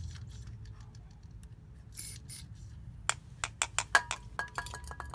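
Short hisses of a WD-40 aerosol can spraying through its straw into an N80 EVAP purge valve to clean dirt out of it. In the last two seconds come a run of sharp clicks and light taps, a few with a faint metallic ring.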